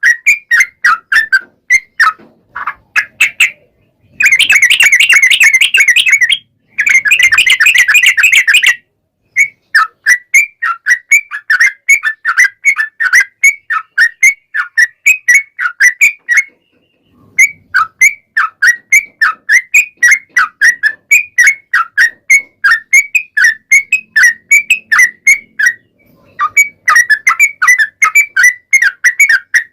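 Yellow-vented bulbul (trucukan) singing: a long run of short, quick chattering notes at a few per second, broken by short pauses. About four and seven seconds in come two fast, dense rolling trills (the 'ropel').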